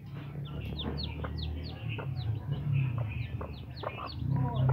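Newly hatched chick peeping repeatedly: short high peeps that slide downward, about three a second.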